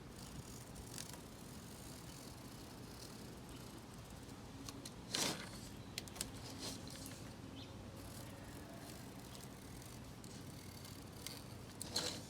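Faint brief scrapes and small clicks from trimming the excess mesh of a window screen along the frame edge, the loudest scrape about five seconds in and another near the end.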